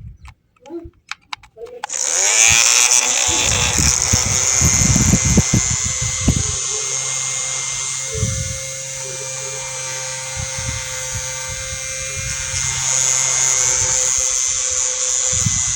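Small DC motor of a homemade mini table fan, which starts up about two seconds in after a few clicks and then runs steadily with a high whir and hiss. Occasional low bumps sound under it.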